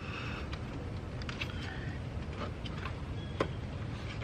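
A few faint, light clicks and taps of a screwdriver working at the plastic wiring connectors on a cooling fan, over a steady background hiss.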